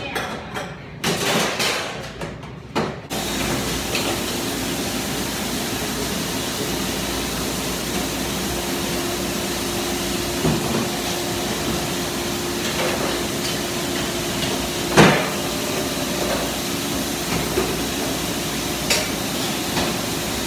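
Commercial kitchen dishwashing: dishes and trays clattering, then, about three seconds in, a steady rush of machinery or spraying water with a low hum sets in. Sharp clanks of dishware come now and then, the loudest about fifteen seconds in.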